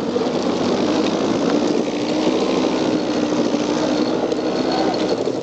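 ATV engine running hard at steady high revs while climbing a steep hill, tires spinning. It breaks off right at the end.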